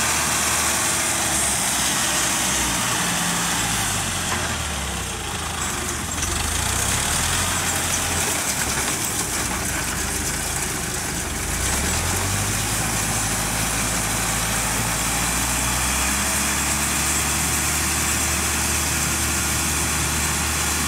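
Farm tractor's diesel engine running steadily as it pulls a small round baler through straw stubble, its note dipping and climbing back up a couple of times, over a steady hiss.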